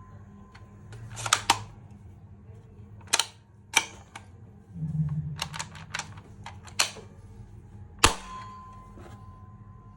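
Nerf Rival Fate XXII-100 blaster giving a series of sharp plastic clicks and snaps: a couple of single clicks, a quick run of clicks in the middle with a brief low hum, and one loudest sharp crack near the end with a short ringing after it.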